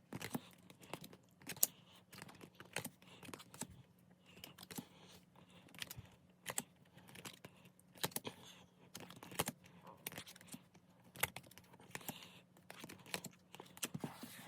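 Photo cards being handled and gone through, making irregular light clicks and taps as the cards knock and slide against each other.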